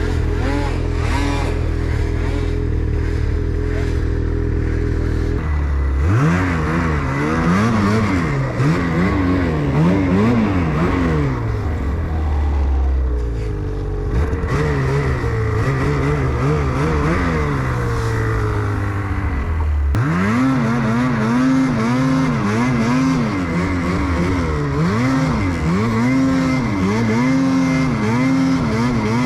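Snowmobile engine under riding load, held at a steady high pitch for about five seconds, then revving up and down again and again as the throttle is worked, with a sudden change near the two-thirds mark before the rising and falling revs resume.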